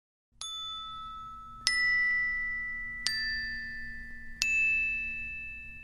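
Intro music sting: four bell-like struck notes about a second and a half apart, each ringing on and overlapping the next, over a low steady drone.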